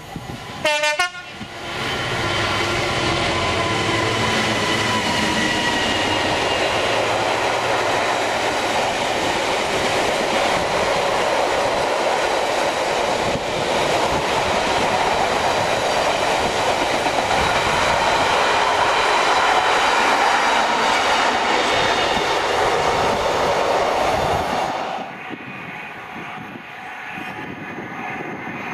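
Diesel freight locomotive sounding a short horn blast about a second in, then the locomotive and a long rake of box wagons passing close, wheels clattering and rumbling on the rails. The noise drops off sharply near the end as the last wagon goes by.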